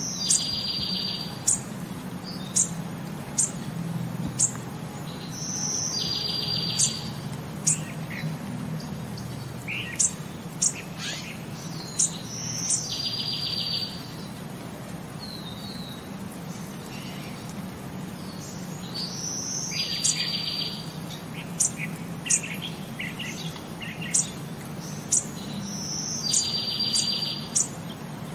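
Birds chirping: a short buzzy trill with sharp high chirps, the same phrase coming back about every six to seven seconds, over a steady low hum.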